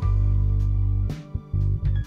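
Electric bass guitar, a 1984 Fender Jazz Bass Special PJ-535, played fingerstyle and recorded direct from the amp's DI out: a held low note for about a second, then a few short plucked notes with brief gaps between them.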